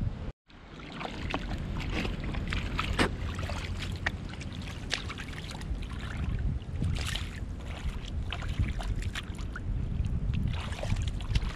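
Small splashes and squelches of bare feet and a hand working through shallow water and soft mud, over a steady low rumble of wind on the microphone. The sound cuts out for a moment just after the start.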